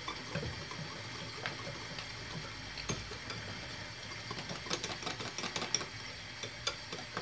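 A metal utensil whisking a thin batter of egg, flour and milk in a glass bowl, with quick clicks against the glass that come thicker about halfway through.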